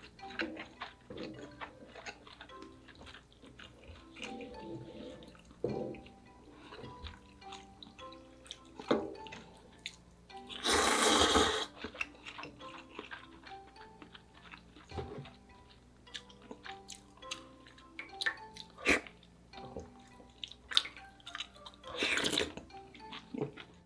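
Eating spicy ramyeon with soft tofu: wet slurps and small clicks throughout, with a long loud slurp about eleven seconds in and another near the end. Quiet background music plays underneath.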